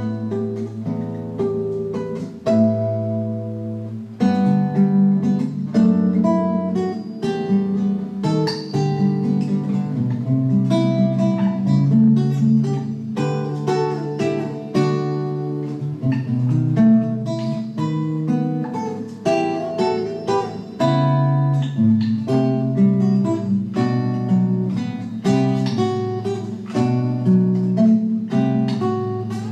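Background music on acoustic guitar: a steady flow of plucked and strummed notes.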